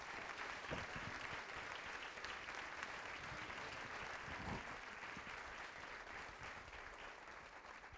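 A large audience applauding, a dense steady patter of clapping that thins out near the end.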